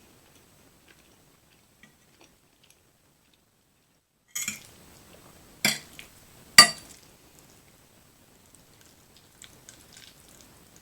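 Cutlery knocking against a dish three times, sharp and loud, over the second and a half around the middle, with faint chewing clicks before and after.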